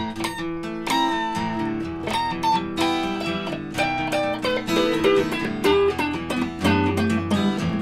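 An acoustic guitar and an electric guitar playing a song together, with a run of picked notes over held chords.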